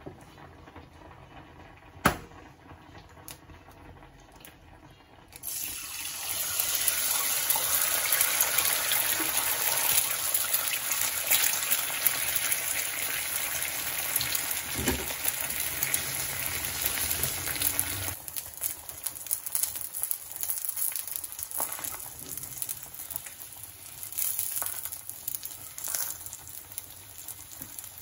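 An egg tapped once sharply on the pan, then dropped into hot oil in a non-stick frying pan, where it sizzles loudly; the sizzling quietens about two-thirds of the way through and carries on more softly as the egg fries.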